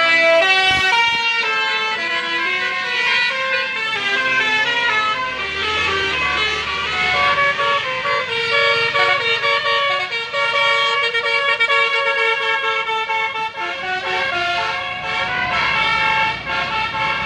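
Bus 'telolet basuri' musical air horn playing a tune: a run of held notes, often several at once, stepping up and down in pitch.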